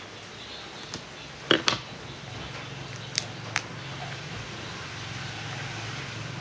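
A few sharp crinkles and clicks from a plastic ketchup sachet being handled and opened, the loudest pair about a second and a half in, over a steady low hum.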